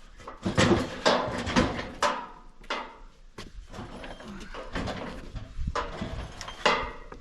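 Irregular knocks, scrapes and clatters from a barbecue grill being handled to get it ready to move. The loudest bangs come in a cluster around the first two seconds and again once near the end.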